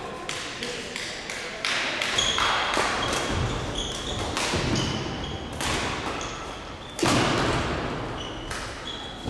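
Badminton rally: rackets smacking the shuttlecock about once a second, each hit echoing in the hall, with short squeaks of shoes on the court floor. The hardest hit comes about seven seconds in.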